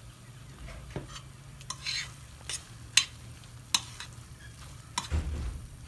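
Metal spoon stirring a thick, creamy corn and mushroom mixture in a stainless steel pan, with about six sharp, irregular clinks as the spoon hits the pan.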